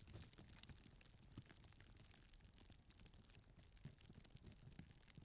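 Plastic bag being scrunched: faint, irregular crinkling and crackling of thin plastic.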